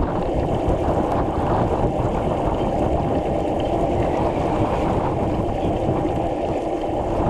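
Wind rushing over the microphone of a camera on a moving bicycle: a steady low rumble.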